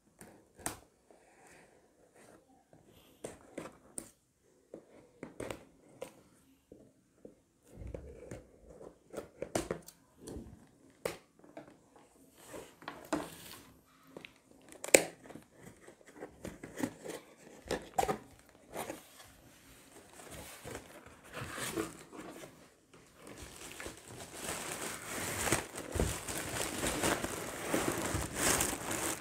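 A cardboard box being unsealed by hand. First come scattered small clicks and scrapes as scissors cut and packing tape is picked at and peeled. From about two-thirds of the way in, the cardboard flaps are pulled open with a steady, louder crinkling rustle.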